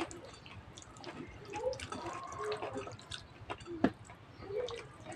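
Close-up wet eating sounds: a man chewing karedok and rice eaten by hand, with many small wet clicks and smacks and soft squelches as his fingers work the sauced vegetables and rice. One sharper click comes a little before four seconds in.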